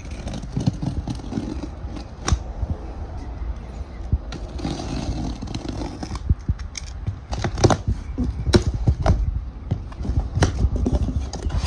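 Utility knife slitting packing tape along the seam of a cardboard box: a rasping cut with many sharp clicks and taps, thickest in the second half.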